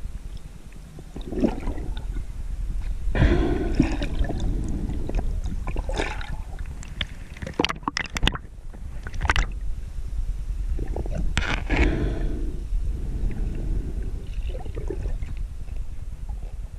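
Underwater sound picked up through a camera housing: a steady low rumble of water moving past, with irregular gurgling, scraping and a few sharp clicks as the spear line and the speared tilapia are handled.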